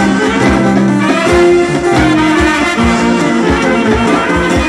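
Traditional Macedonian folk dance music played by a brass band: horns carry the melody in held notes over a bass drum beat.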